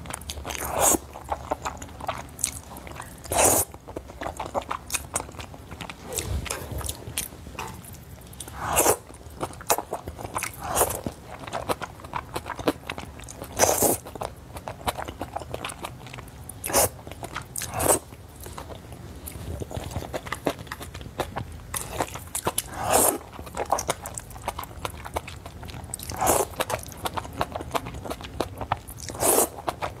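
Slurping of thick noodles in black bean sauce, with loud slurps every few seconds and chewing between them.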